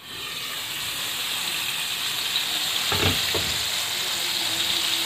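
Coated chicken wings shallow-frying in hot oil in a wok: a steady, dense sizzle that swells over the first second as the lid comes off.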